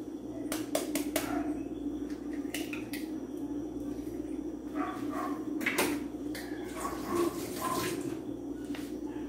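Light clicks and taps of a fork and eggshell against a bowl while eggs are cracked and worked in it, over a steady low hum.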